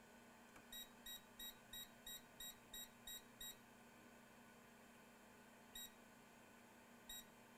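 Short, high-pitched electronic beeps from bench electronics: a quick run of about nine beeps at roughly three a second, then two single beeps a little over a second apart near the end, over a faint steady hum.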